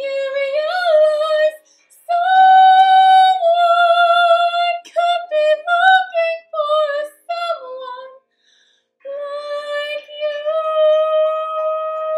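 A soprano singing the closing phrases of a musical theatre ballad over recorded piano accompaniment: several short sung phrases, a brief pause about eight seconds in, then a long held high note.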